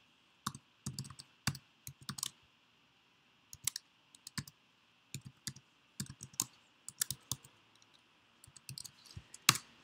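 Typing on a computer keyboard: irregular key clicks in short runs, with a louder click near the end.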